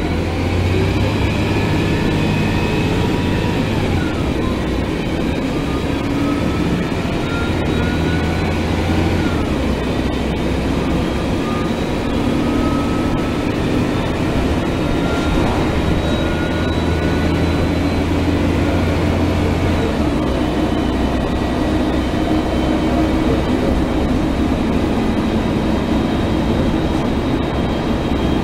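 2004 Gillig Phantom transit bus running, with its Cummins ISL inline-six diesel and Voith D864.3 automatic transmission: a steady low engine drone that swells and eases in stretches, with thin high whines gliding up and down in pitch.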